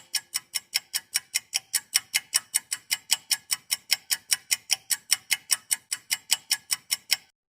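Clock-ticking sound effect: sharp, evenly spaced ticks, about four or five a second, which stop abruptly near the end.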